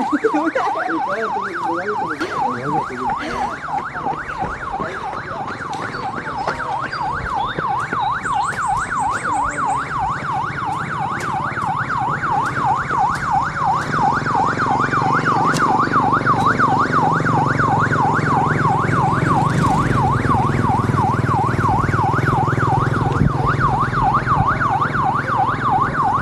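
Electronic yelp siren wailing continuously, its pitch sweeping rapidly up and down several times a second. A low rumble joins underneath about halfway through.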